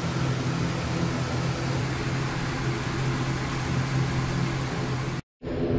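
Steady machinery hum in an ATR 72-600 cockpit: a few low steady tones over an even hiss. It cuts off abruptly about five seconds in.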